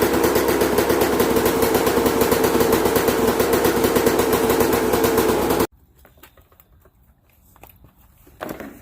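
Yamaha YZ125 two-stroke single-cylinder dirt bike engine running, a rapid even firing rattle, freshly rebuilt. It cuts off suddenly a little over halfway through, leaving only faint clicks.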